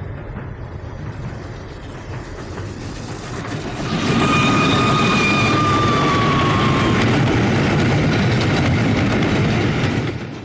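Steam train running, its rumble swelling louder about four seconds in. A high tone with overtones slides slightly down in pitch over a few seconds, and the sound cuts off near the end.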